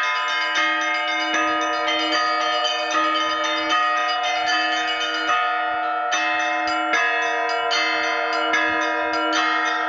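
Russian Orthodox bell peal (zvon) rung by hand in a belfry, led by a new 120 kg blagovestnik bell cast at Vladimir Shuvalov's foundry. The bells are struck in a fast, even rhythm over their continuous ringing and overlapping hum.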